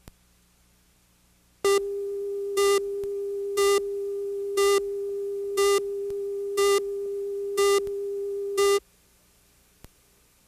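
Videotape countdown leader: a steady mid-pitched test tone that swells into a louder beep once a second, eight beeps in all, then cuts off suddenly. A faint single click comes just before it starts and another after it stops.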